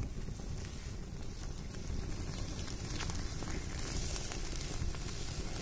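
Open wood fire burning under bamboo-skewered fish, with a steady low rumble and a few faint sharp crackles.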